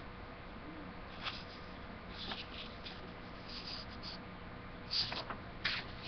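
Sheets of printer paper rustling as they are held and handled, in short scattered bursts over a steady low room hum.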